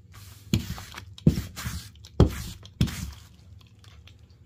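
Yellow padded bubble mailers being shuffled and slid across a desk mat: about five short rustling scrapes, each with a soft thud.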